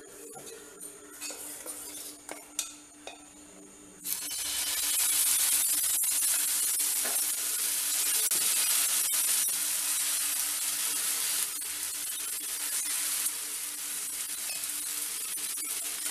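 A few light clicks of a ladle and pan, then about four seconds in a sudden steady sizzling hiss as poha dosa batter hits the hot nonstick tawa and is spread out with the ladle, a dosa starting to fry.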